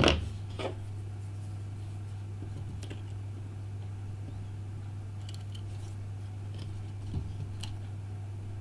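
Small tools and tiny parts clicking and tapping against an iPhone 5 during disassembly: a sharp click at the start, another about half a second later, then a few faint ticks, over a steady low hum.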